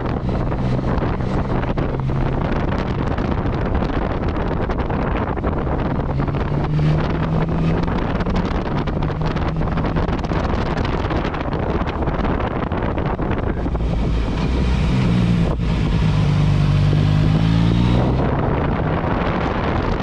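Yamaha MT-09 Tracer's three-cylinder engine running under way, with wind rushing over the microphone. About 14 seconds in, the engine note climbs as it revs up, then drops back near 18 seconds.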